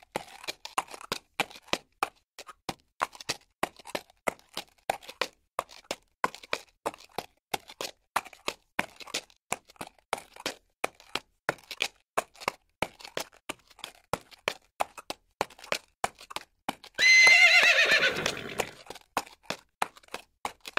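Horse hooves clip-clopping in a quick, steady run of sharp clicks, with one loud horse whinny late on that falls in pitch over about a second and a half.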